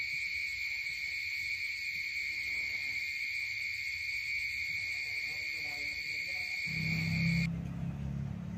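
Crickets trilling, one steady, unbroken high note. It stops about seven and a half seconds in, and a low, steady hum begins just before that.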